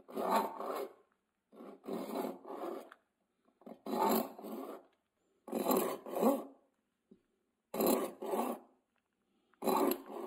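Hand hacksaw cutting across a threaded metal rod, rasping in short strokes that come in pairs about every two seconds, with brief pauses between.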